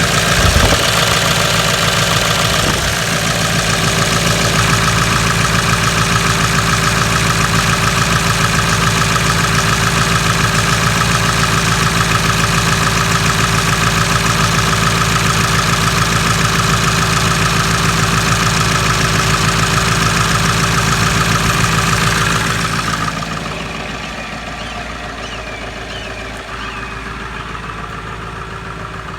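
Car engine idling steadily while still cold, having been started at about 22 degrees after standing unused for four weeks. About 23 seconds in it turns quieter and duller.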